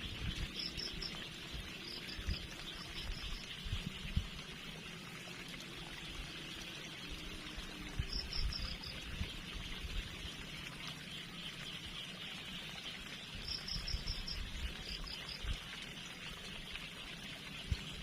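Waterside ambience: a steady insect chorus with short clusters of high chirps a few times, over trickling water, with scattered low bumps.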